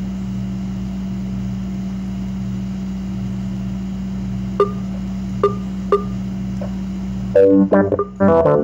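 A steady low hum with three short clicks, then, near the end, an instrumental track with bass guitar starts loudly, played through a bare subwoofer driven by the AudioPipe APHD-30001 amplifier as a playback test after repair.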